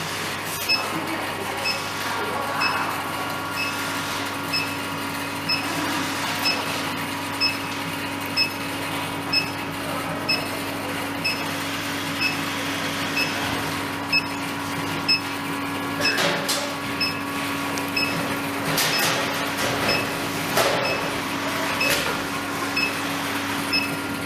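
Small induction gold-melting furnace running with a steady electrical hum, short regular ticks about once a second, and a few louder clinks in the second half.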